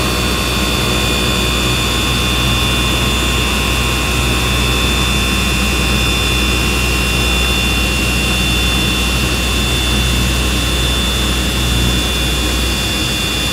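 Lectra automatic cutting machine running as its vibrating knife cuts through a 34-ply stack of Endumax film, the blade oscillating at 3000 strokes a minute: a loud, steady drone with a low hum and a high whine. The low hum drops away near the end.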